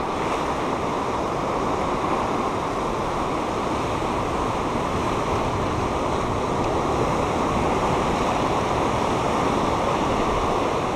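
Ocean surf breaking and washing over the rocks of a rocky shoreline: a steady rush of water with no distinct events.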